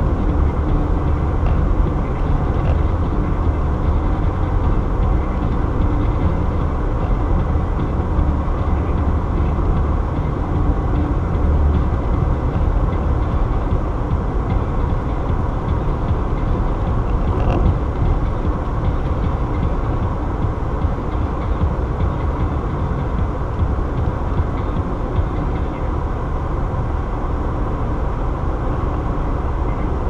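Steady road noise inside a car cabin at highway speed: a low rumble of tyres on pavement and engine hum, with no change in level throughout.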